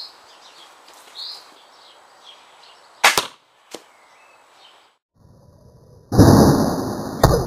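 A 150-pound crossbow shot at a stab-proof vest panel on a foam target. A loud sudden thump comes near the end and fades over a couple of seconds, with a second sharp crack about a second after it. Birds chirp before this, and two sharp clicks come about halfway through.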